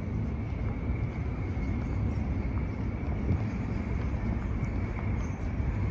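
Steady low rumble of city street noise, mostly distant traffic, with a faint steady high-pitched tone running through it.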